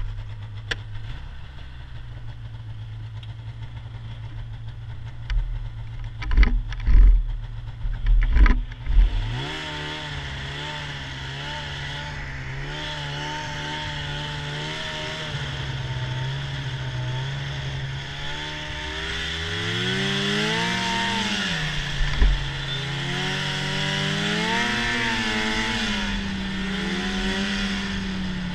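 Arctic Cat snowmobile engine idling steadily, with a few loud thumps between about 5 and 9 seconds in. It then pulls away and runs at speed, its pitch rising and falling with the throttle over a steady hiss of track and wind.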